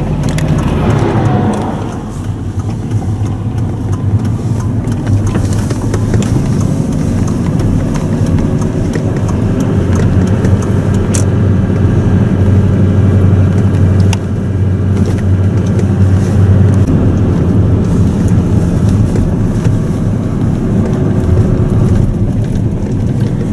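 Steady engine and road noise of a moving vehicle heard from inside its cab, a continuous low rumble from the tyres and drivetrain while cruising.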